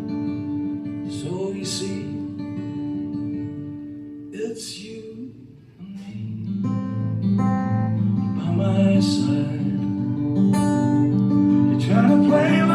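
Live band music led by acoustic guitar, playing without lead vocals. The music drops down to its quietest about five to six seconds in, then comes back fuller, with a bass line and cymbal hits.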